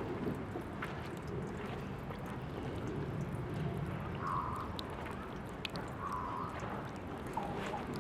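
Water running steadily from a drinking-fountain tap, a continuous trickling, splashing pour with small scattered drips.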